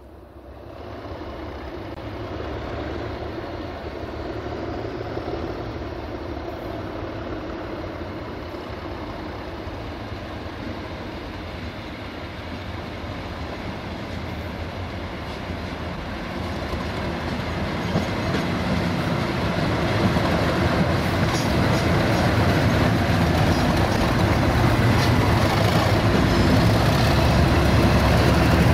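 Pair of Class 97 diesel locomotives (rebuilt Class 37s, English Electric V12 engines) approaching, their engines running steadily and growing louder over the last ten seconds as they near.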